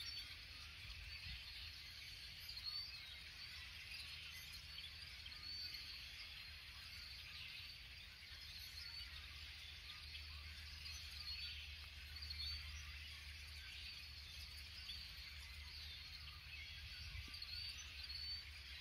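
A dense spring chorus of many small animals calling at once, a steady mass of high chirps and short trills, over a low steady rumble.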